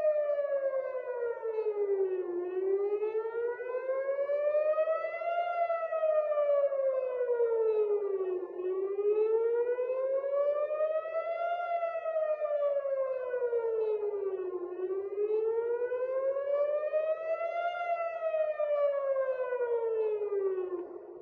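Civil-defence air-raid warning siren wailing, its pitch gliding slowly up and down about every six seconds. It is the alert for an incoming missile.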